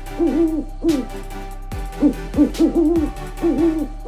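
Owl hooting: quick runs of short, arched hoots, three to five in a burst, with the bursts repeating about once a second.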